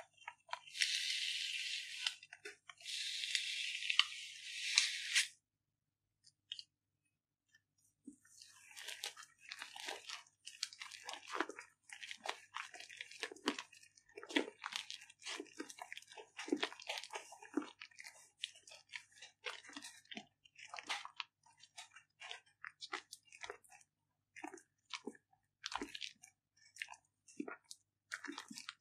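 Thick slime being stirred with a spoon in a glass baking dish, giving irregular wet crackling, popping and squelching. It is preceded by two short stretches of high hiss near the start and a brief lull.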